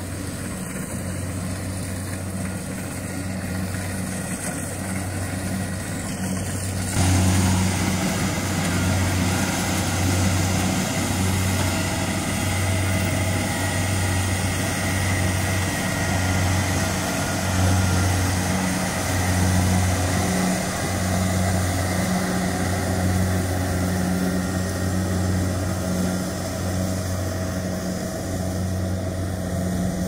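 Rice combine harvester's diesel engine running steadily as it cuts through the paddy, a low hum that wavers about once a second over a wide mechanical rush. About seven seconds in it suddenly becomes louder and fuller.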